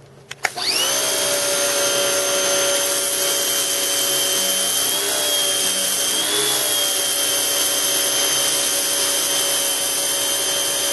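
Force 1800 electric pressure washer starting with a click. Its motor and pump spin up with a rising whine within the first second, then run steadily under a hiss of water spraying from the multifunction nozzle.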